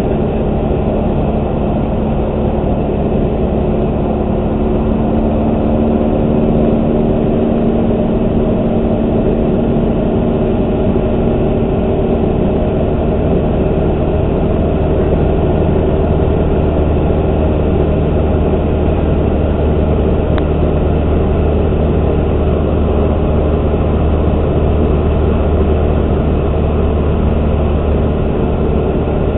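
Single-engine light aircraft's piston engine and propeller running steadily in cruise, a loud even drone heard from the cockpit. The engine note shifts slightly about halfway through.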